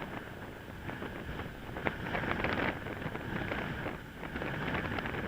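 Wind buffeting the microphone, with many small crackles and ticks scattered through it.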